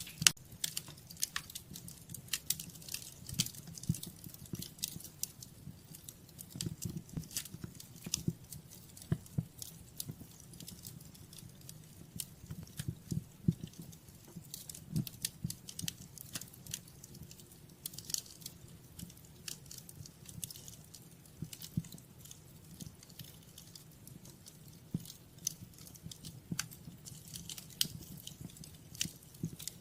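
Wood fire in a fireplace crackling, with many irregular sharp pops and snaps over a low, steady rumble.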